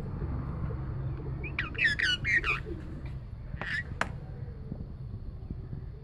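Rose-ringed parakeet giving a quick run of high, chirping squawks about one and a half seconds in, then one short call a second later, over a steady low hum.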